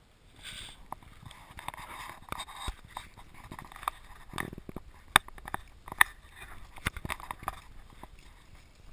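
Footsteps on a paved path with handling noise from a handheld camera: irregular knocks and clicks about once a second over a faint rustle.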